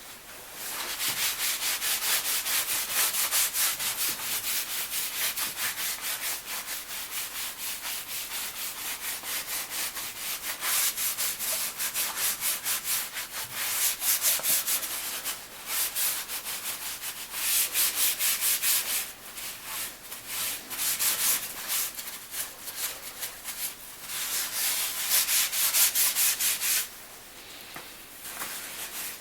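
Rapid back-and-forth scrubbing on the oil-stained painted metal of a Boxford lathe: quick, even rubbing strokes with a couple of short pauses, stopping shortly before the end.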